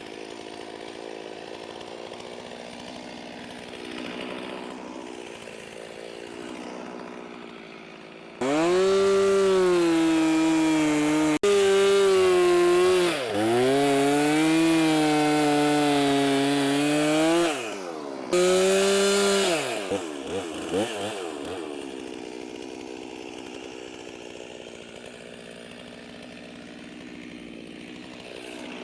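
Two-stroke chainsaw cutting through pond ice. It runs at a low idle, then is opened up to full throttle for about nine seconds, its pitch dipping and recovering as the bar bites into the ice. After one more short burst of throttle it drops back to idle.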